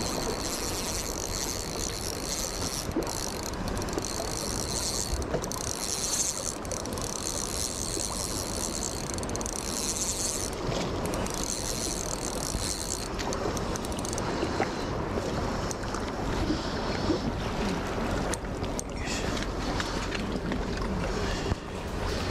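Steady outdoor wind and water noise, with a few small clicks and rustles from handling fishing tackle. A high hiss in the mix drops away about halfway through.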